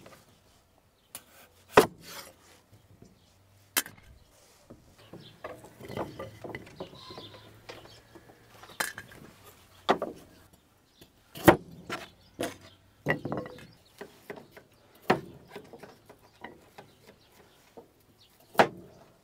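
Kitchen knives cutting vegetables on wooden cutting boards: irregular sharp knocks as the blade hits the board, a second or two apart, with quieter slicing and scraping between them.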